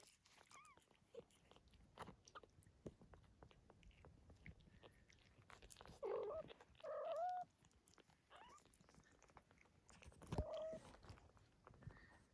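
Young Sphynx kittens giving short mews: a faint one near the start, two louder ones about six seconds in and another about ten seconds in, over soft wet clicking of suckling and licking.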